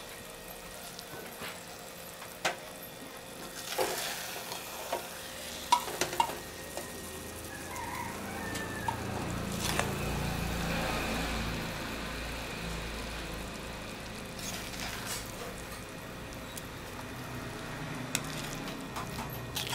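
Tomato masala sizzling in a steel kadai, with a steel ladle scraping and clinking as it is scooped out onto cooked rice. There are several sharp clinks in the first half and a low rumble around the middle.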